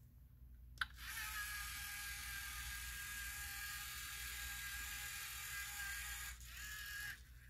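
A click, then the EV3 robot's drive motors start and whir steadily with a high whine as it drives across the table. About six seconds in, the whine dips and rises briefly in pitch, and it stops shortly before the end.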